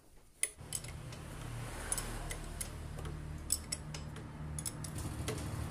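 Scattered light metallic clicks and taps of a spanner and parts being handled on a Yamaha Vega ZR's opened clutch. A low steady hum starts about half a second in and runs under them.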